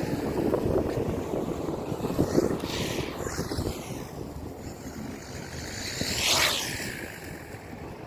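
Road traffic noise with wind on the microphone; a vehicle swells past and fades about six seconds in.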